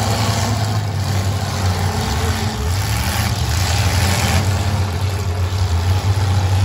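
The engines of several demolition derby cars running and revving together in a steady, loud, low rumble.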